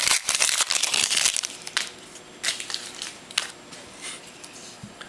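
Wrapper of a 2010 Donruss Elite football card pack being torn open and crinkled. A dense crackle lasts about the first second and a half, followed by a few short separate crinkles.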